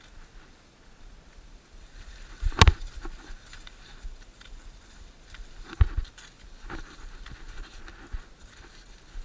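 Cross-country skis sliding and scraping over loose, packed snow, with pole plants giving a light irregular patter. Among them are a few sharp knocks: the loudest comes about two and a half seconds in, and others come near six seconds.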